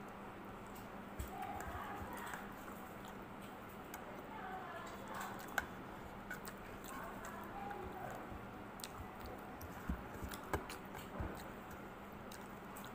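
Someone eating by hand from a ceramic plate: faint chewing and a few small clicks and taps of fingers and food against the plate, over a steady low hum.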